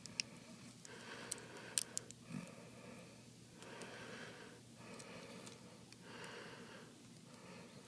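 Faint, steady breathing close to the microphone, in and out about once a second, with a few small sharp clicks and taps in the first two seconds as small parts are handled.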